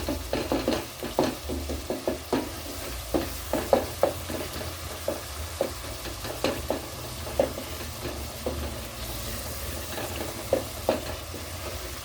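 Boiled potatoes being mashed in a pot: irregular knocks and soft squishes, denser near the start and end and sparser in the middle, over a faint steady low hum.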